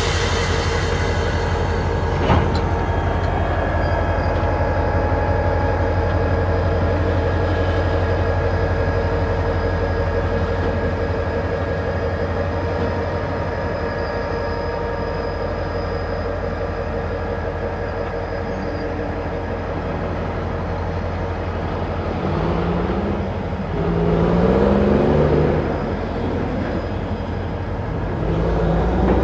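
CSX GP40-2 diesel locomotive and its road slug moving slowly along the spur: a steady engine drone with the rumble of wheels on rail, one sharp clack about two seconds in. Near the end the sound swells louder twice with shifting-pitch tones.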